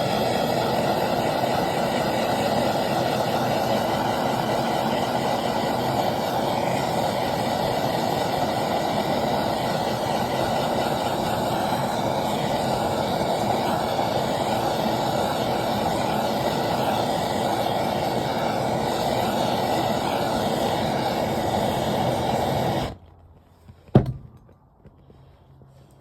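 Blowtorch flame running steadily while it melts the end of a synthetic rope tag line so the strands fuse together. The flame cuts off suddenly near the end, and a single sharp knock follows.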